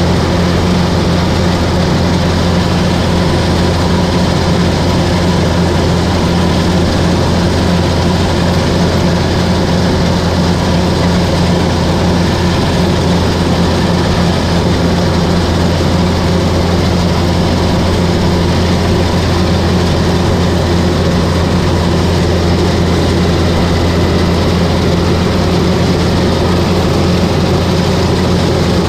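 Kubota rice combine harvester heard close from the operator's seat, its engine and cutting header running steadily as it harvests rice: a loud, even drone with a deep hum that does not change.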